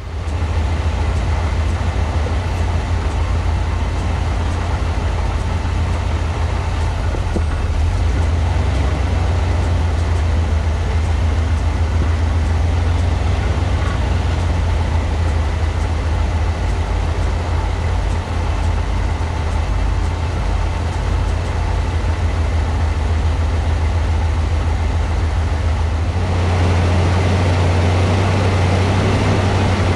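Steady low engine drone and road noise of a vehicle driving along a snowy off-road trail, heard from on board. It grows a little louder near the end.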